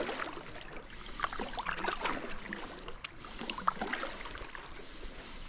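Water splashing and gurgling in irregular small strokes as a stand-up paddleboard is paddled across calm creek water.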